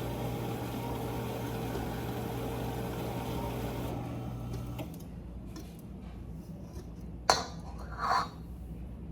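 Electric mixer running steadily with a motor hum, then switched off about five seconds in. A sharp click follows a couple of seconds later.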